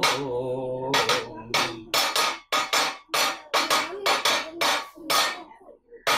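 A man sings a held, wavering note in the Kathakali style. Then about a dozen sharp percussion strikes follow at roughly three a second, with one more strike near the end.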